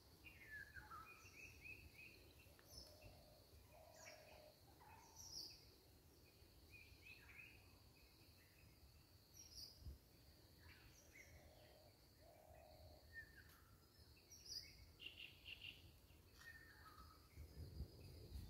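Faint bird calls: short chirps and whistles from several birds scattered throughout, over a steady high-pitched buzz.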